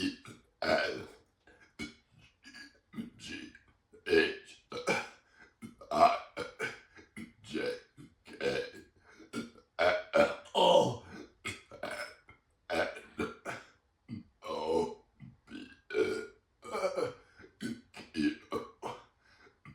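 A person burping the letters of the alphabet after gulping down iced tea: a long run of short burps, about one or two a second, each shaped into a letter, with a longer drawn-out burp about ten seconds in.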